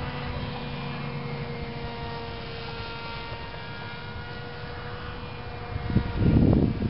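Electric motor and propeller of a Dynam Hawk Sky RC foam plane whining steadily, the pitch sinking slowly. About six seconds in, a burst of wind buffets the microphone.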